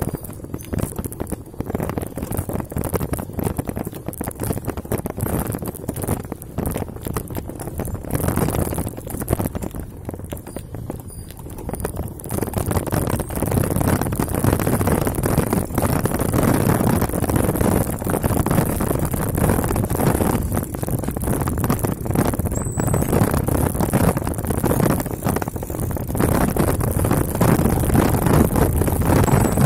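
Mountain bike riding over a rough dirt trail: a continuous irregular clatter of jolts and rattles from the bike, with tyre noise on the dirt. It gets louder about twelve seconds in.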